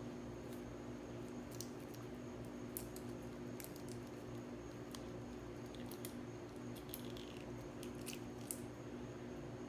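Resin pendants being peeled and popped out of flexible silicone molds: scattered small sticky clicks and crackles as the silicone flexes and lets go, over a steady low hum.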